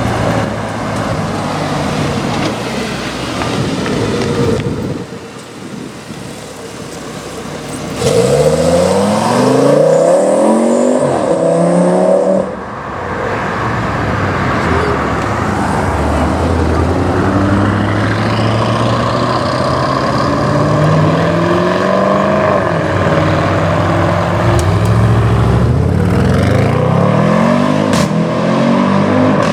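Audi RS6 engines accelerating hard, one pull after another, the pitch climbing with each. A loud pull starts suddenly about eight seconds in and cuts off about four seconds later, and further rising pulls follow through the rest of the stretch.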